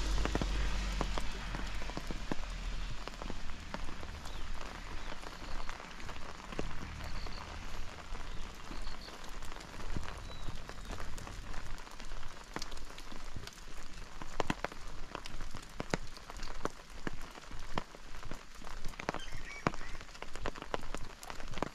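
Steady rain falling, with many close drops ticking sharply. A passing vehicle fades out in the first second or two, and under the rain runs a regular pulse of about one to one and a half beats a second, like footsteps on a wet road.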